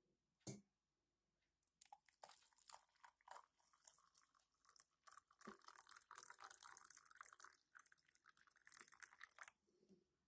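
Faint pour of boiling water from a stovetop kettle into a mug of ground coffee: a crackly, splashing stream lasting about eight seconds, preceded by a single knock about half a second in.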